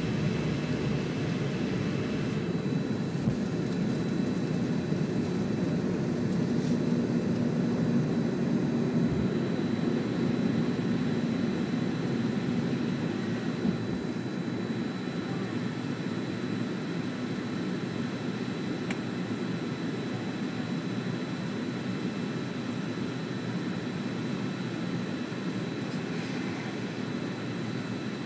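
Jet airliner engine noise heard inside the cabin during the takeoff roll and climb-out: a steady rushing drone at takeoff power. The lowest rumble drops away about fourteen seconds in, and the noise eases slightly as the plane climbs.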